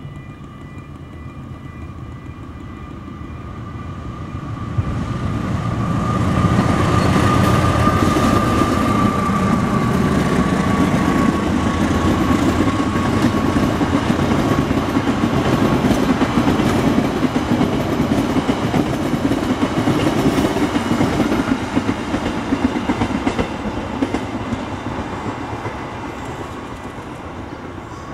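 Parcel freight train hauled by a GE CM20EMP (CC 206) diesel-electric locomotive passing close by. The locomotive comes up loud about five seconds in, then a long run of wagons clatters over the rail joints, fading away near the end.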